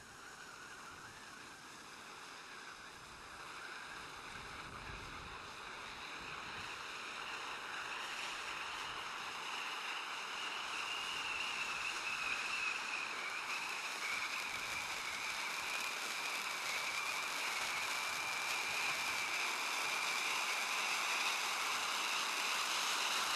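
SkyLine Titanium Volcano ground fountain firework burning with a steady hiss that grows gradually louder as the flame turns into a spark shower.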